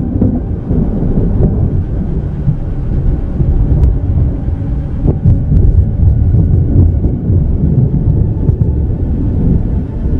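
Thunder from a thunderstorm, a low, continuous rumble.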